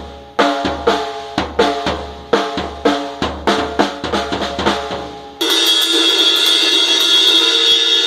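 A child playing a drum kit: uneven strikes across the toms and bass drum, about two to three a second, each with a ringing pitch. About five seconds in the strikes give way to a loud, continuous cymbal wash.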